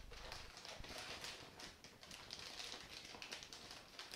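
Shiny plastic mailing envelope crinkling and rustling as a box is slid into it, with small crackles of the film throughout.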